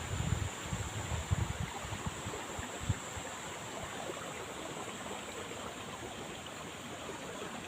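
Steady rushing outdoor noise of rain or running water, with low bumps and buffets on the microphone in the first three seconds.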